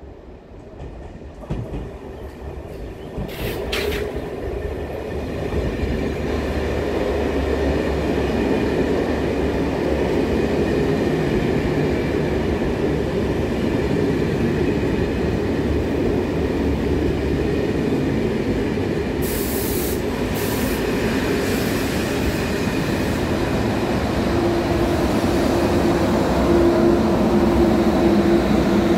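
Electric push-pull regional train of coaches with an SNCF electric locomotive passing close by. The rumble of its wheels on the rails builds over the first few seconds and then holds, with two sharp clicks early on, a couple of short high hisses around two-thirds of the way through, and a steady hum rising near the end.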